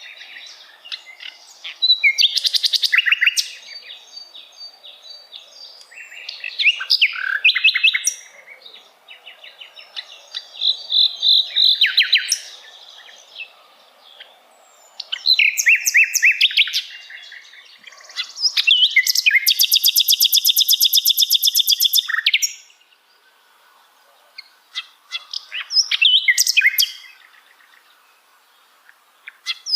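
Common nightingale singing: loud, varied phrases of rapid repeated notes separated by short pauses, with a long fast trill about two-thirds of the way through.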